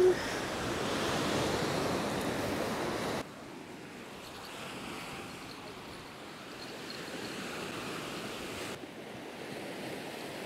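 Sea waves breaking and washing up on a sandy shore: a steady rushing surf. It drops abruptly to a softer wash about three seconds in.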